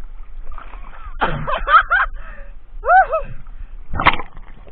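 A man's excited wordless cries and laughter: several short calls that rise and fall in pitch, then one more about three seconds in, and a brief splash near the end as the camera dips into the water.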